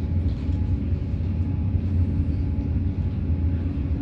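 Steady low rumble of a moving passenger train, heard inside the carriage.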